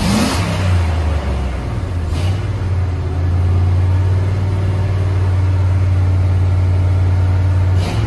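A 1999 Dodge Ram 1500's 5.2-litre (318) V8 is revved from idle and held steady at about 2000 rpm for several seconds, then drops back toward idle at the very end. It is heard from inside the cab.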